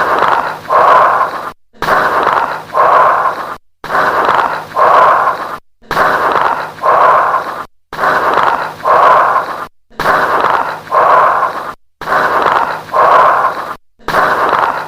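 Recorded lung auscultation of bronchial breath sounds with late-inspiratory crackles. A loud breath in and a breath out repeat about every two seconds, with a brief silent gap between cycles.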